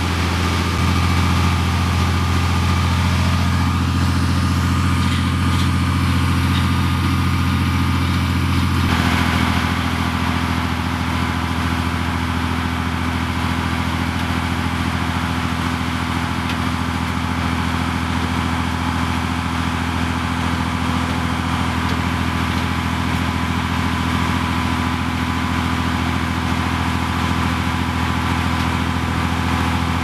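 Engine of a tracked armoured bridge-laying vehicle running steadily at a low, even pitch. The sound changes abruptly about nine seconds in.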